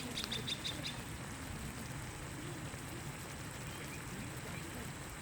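Steady hiss of light rain falling, with a quick run of short high clicks in the first second.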